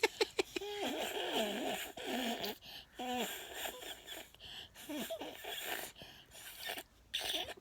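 A broken toy giving out its strange cry: a string of short, squeaky, voice-like calls whose pitch bends up and down, several in a row with gaps between.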